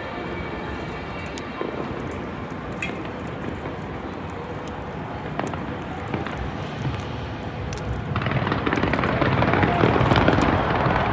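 Fireworks display: a continuous rumble of distant bursts with scattered sharp cracks, growing louder and denser about eight seconds in.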